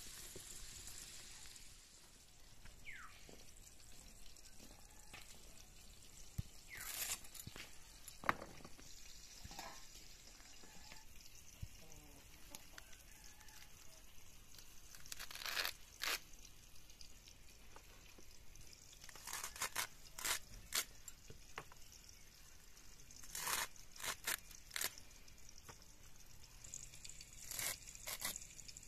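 Pork sizzling in an aluminium pan for the first couple of seconds. Then come faint, irregular crisp crunching cuts, one at a time and in quick clusters, as leafy greens are sliced against a boti, a curved blade fixed in a wooden base.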